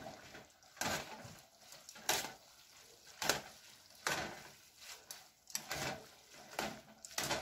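Metal tongs scraping and clinking against a stainless steel pot while tossing soft rice vermicelli noodles, in irregular strokes about once a second.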